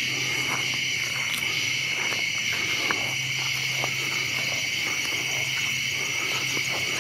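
Steady, unbroken chorus of crickets and other night insects.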